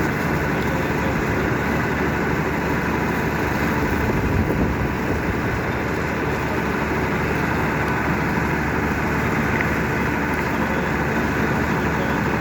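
Heavy engine idling steadily.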